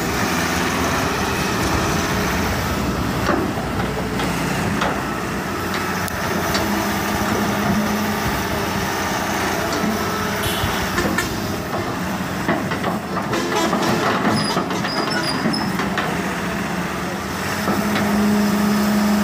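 Sumitomo hydraulic excavator working, its diesel engine running steadily under a constant hum while the boom and bucket move. Scattered clanks and knocks of the bucket and arm sound through it, several close together past the middle.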